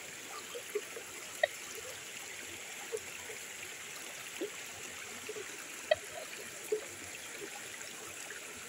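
Steady rush of a stream, with a few brief sharp clicks, the loudest about a second and a half in and again near six seconds.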